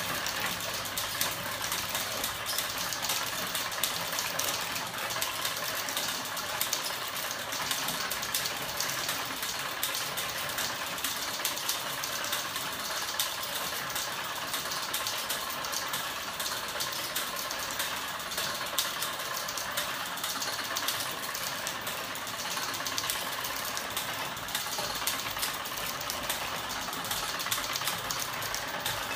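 Homemade ornithopter engine, a crank-wheel mechanism driven by a battery-powered electric motor, running steadily with a fast, even mechanical clatter.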